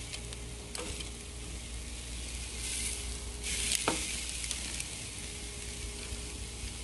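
Chicken quarters sizzling on a charcoal grill grate, the sizzle swelling louder about three seconds in. A couple of short metallic clicks come from the tongs handling the chicken on the grate.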